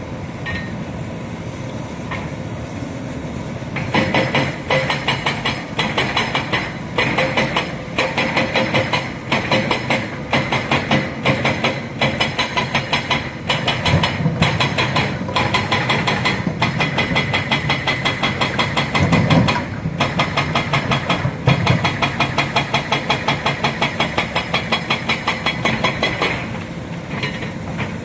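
Hitachi Zaxis 210F excavator's diesel engine running, with a steady throb. About four seconds in it starts to pulse about twice a second as it works harder, and it settles back near the end.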